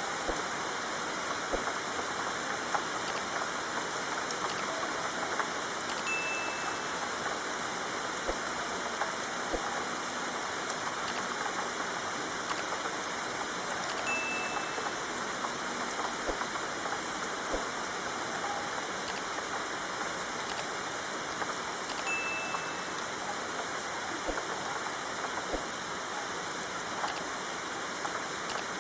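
Steady rain falling: an even hiss with scattered drops tapping through it. A brief high tone sounds about every eight seconds.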